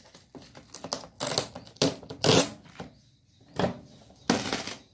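Packaging being handled during an unboxing: a string of irregular rustles and scrapes, the loudest about two seconds in and again near the end.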